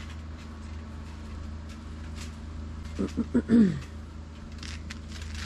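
Outdoor evening ambience: a steady low rumble, with a brief voice about three seconds in that falls in pitch.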